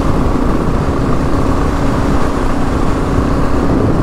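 A 2022 Kawasaki KLR 650 single-cylinder engine, fitted with a Lexx MXe slip-on exhaust, running at a steady pitch while the bike is ridden at an even speed.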